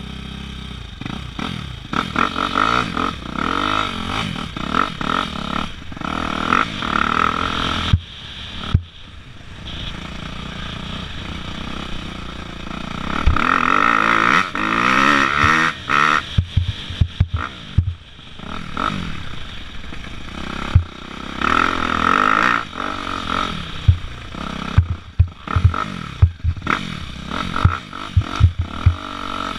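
Dirt bike engine revving up and down as it is ridden over muddy ground, with many sharp knocks and rattles from the bumps, thickest in the second half.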